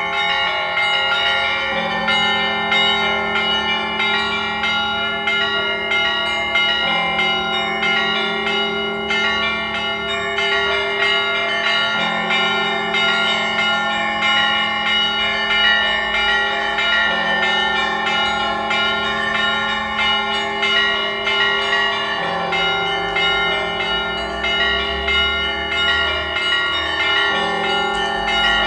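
Orthodox cathedral bells ringing: a rapid, continuous chiming of smaller bells over a large, deep bell struck about every five seconds.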